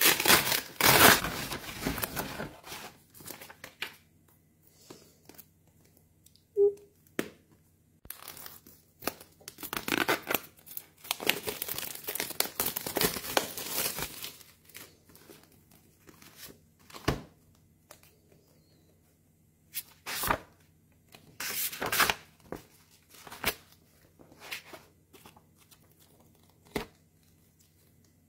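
A parcel's packaging being torn open and crinkled by hand: long spells of tearing and rustling at the start and again from about 8 to 14 seconds in, then shorter, scattered handling rustles and sharp clicks.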